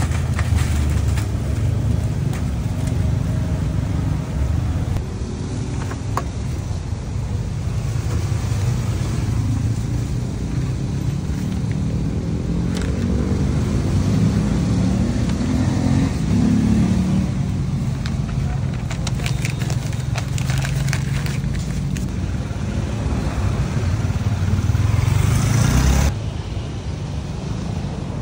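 Street traffic going past: a steady low rumble, with one vehicle swelling up and fading away about halfway through, and a few light clicks. The rumble drops off abruptly near the end.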